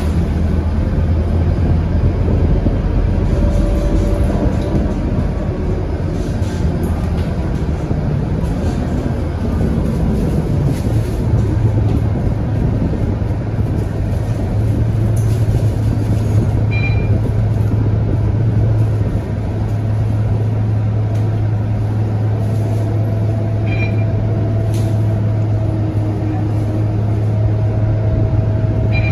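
Cabin sound of a Scania K230UB city bus with its five-cylinder diesel engine running under way. The low drone of the engine rises slightly in pitch about ten seconds in and then holds steady, with a few brief high chirps in the second half.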